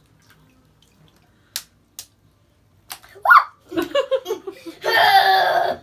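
A few sharp slaps and squelches of thick slime in a bathtub, then children squealing and laughing, loudest near the end.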